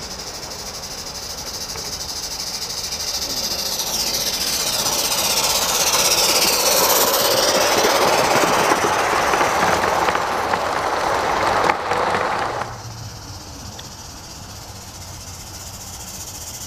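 A Gauge 1 live steam train of tank cars running past close by, a rapid rattling clatter of wheels on the rails with a hiss of steam. It grows louder over several seconds, then cuts off suddenly about two-thirds of the way in, leaving a quieter steady hiss.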